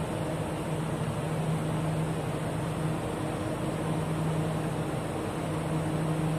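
Steady hum inside a stationary metro train carriage with its doors open: the car's ventilation and onboard equipment running. A low humming tone under it fades in and out a few times.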